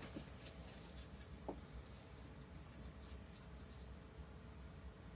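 Faint, near-silent handling of a metal oil pump: a few light clicks and one small metallic clink about a second and a half in, over a faint steady hum.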